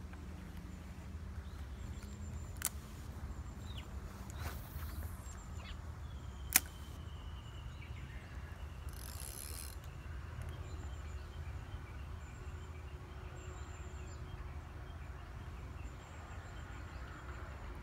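Outdoor ambience beside still water: a steady low wind rumble on the microphone, scattered faint chirps, and two sharp clicks, the louder about six and a half seconds in, with brief hisses around them.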